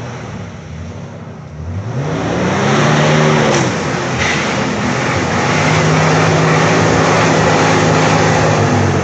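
Jeep Wrangler TJ's engine revving hard under load: its pitch climbs about two seconds in, dips, then holds high and steady for the last few seconds, over a loud rushing noise.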